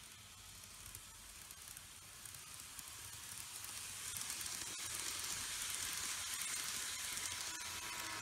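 A TOMIX N-gauge E3 series Komachi model train running past on curved track: a steady hissing rumble of wheels and motor that swells about four seconds in as the train comes close and stays loud until near the end.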